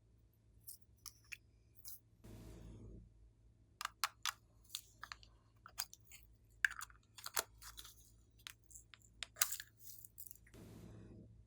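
Slime being worked by hand: an irregular run of sharp clicks and small pops, with two short wet squishing stretches, one about two seconds in and one near the end.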